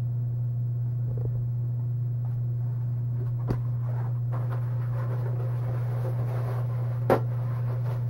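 A steady low hum, with two faint clicks, one about three and a half seconds in and one about seven seconds in.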